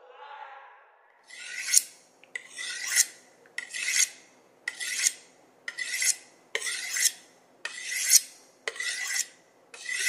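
Rhythmic rasping strokes, about one a second, starting a little over a second in. Each stroke swells and then stops sharply.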